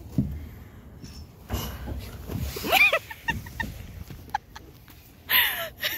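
Someone sliding down a plastic playground slide: a rumbling rub of clothing on plastic, then a rising squeal and a few short laughs about halfway through.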